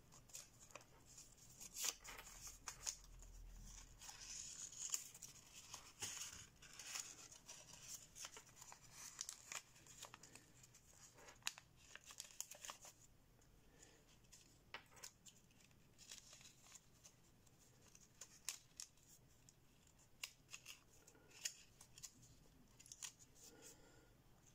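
Thin kami origami paper faintly crinkling and rustling as it is folded, creased and tucked by hand, with scattered soft clicks. The handling is busier in the first half and sparser later on.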